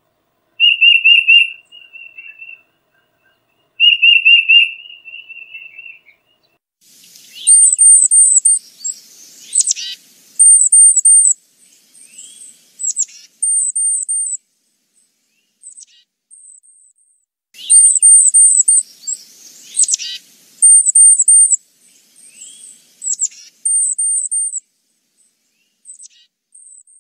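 Tufted titmouse calling: first two runs of quick whistled notes, then from about seven seconds short runs of three or four very high, thin notes, repeated again and again, with harsher raspy calls among them twice.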